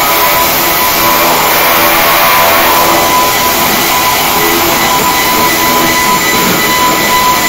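Background music with guitar, over a steady, even noise with a constant high tone.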